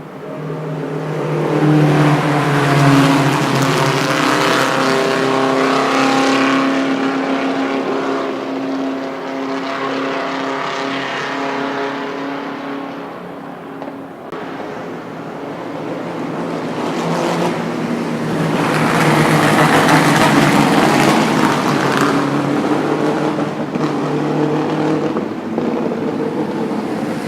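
Vintage Indy race car engines running, their note swelling loudly twice, about three seconds in and again about twenty seconds in.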